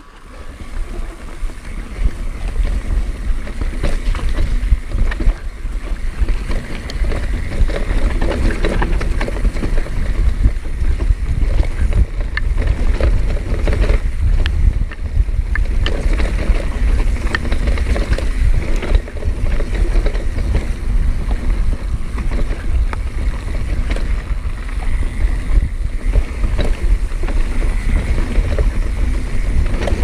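Pivot Switchblade enduro mountain bike ridden fast down a dirt singletrack: tyre rumble over the ground with frequent clicks and rattles from the bike, under heavy wind buffeting on the camera's microphone. The noise rises to full level within the first couple of seconds.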